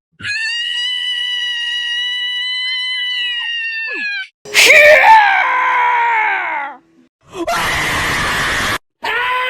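Cartoon sound-effect screams: a long, high, held scream of about four seconds that drops off at the end, then a louder, wavering scream of about two seconds. Near the end comes a short burst of hiss-like noise that starts and stops abruptly.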